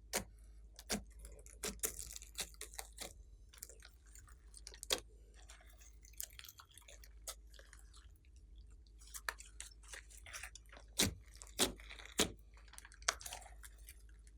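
Glossy slime being squeezed and folded by hand, with irregular sharp pops and clicks and soft squishing between them; the loudest pops come in a quick cluster near the end.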